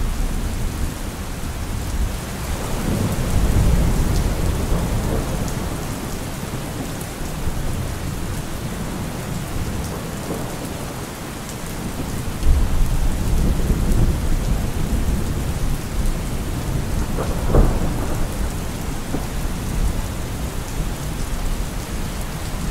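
Steady rain with rolls of thunder; low rumbles swell several times, loudest about twelve seconds in and again past seventeen seconds.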